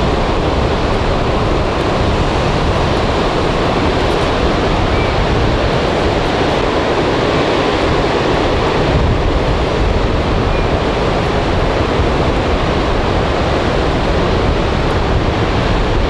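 Ocean surf on a beach: a steady, unbroken rush of breaking waves.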